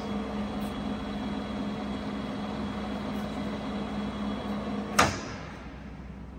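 Mecca Turn 460x1000 lathe's geared headstock and spindle running steadily at 550 rpm with an even hum. About five seconds in there is one sharp clunk, and the running sound drops away as the spindle is stopped to change to a higher speed.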